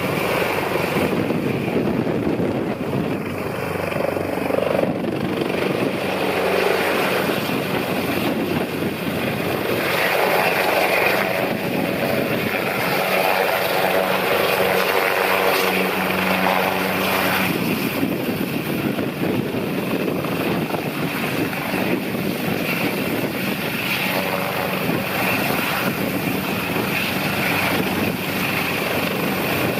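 AgustaWestland AW189 twin-turbine search-and-rescue helicopter hovering, the rapid beat of its main rotor over steady engine noise.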